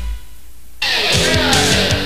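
Background rock music with guitar: it breaks off for under a second with only a low bass note sounding, then the full band comes back in abruptly.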